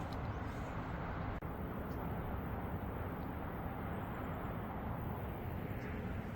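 Steady road and engine noise of a car on the move, a constant low rumble with a faint hum, heard as if from inside the vehicle. It breaks off for an instant about a second and a half in.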